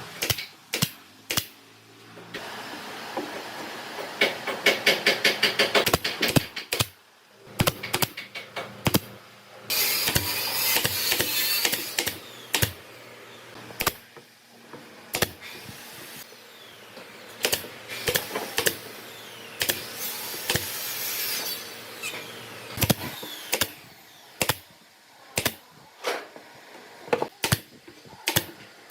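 Hand-tool work on wood: repeated sharp taps and knocks, a quick even run of taps a few seconds in, and two stretches of scraping.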